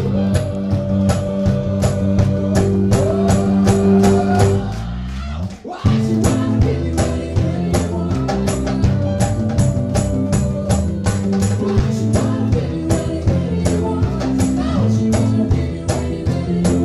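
A live pop band plays: keyboard, guitar, hand percussion and a sung vocal, with a steady beat of percussion hits. About five seconds in, the music drops away briefly with a falling sweep, then the band comes back in.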